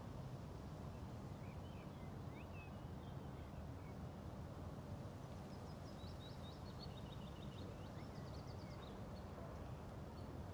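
Faint songbird chirps over a steady, low background rumble of outdoor ambience, the chirps coming in two short spells, a denser run of quick notes in the second half.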